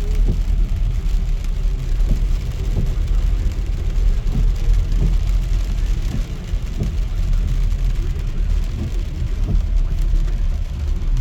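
Car driving on wet roads in heavy rain: a steady low road and engine rumble with rain and tyre hiss, heard from inside the car.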